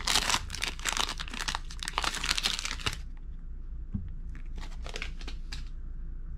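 Foil wrapper of a Panini Absolute Football card pack crinkling and tearing as it is pulled open. The crinkling stops abruptly about three seconds in, followed by a few soft rustles as the stack of cards is handled.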